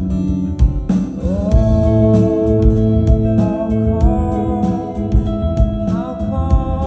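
Live rock band playing a song: a sung melody with held, gliding notes over sustained organ-like keyboard chords, bass and a steady drum beat.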